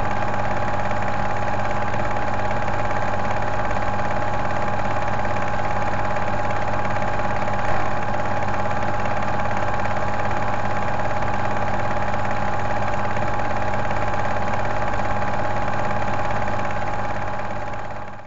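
Steady mechanical hum with several held tones, like a running motor, unchanging throughout and fading out near the end.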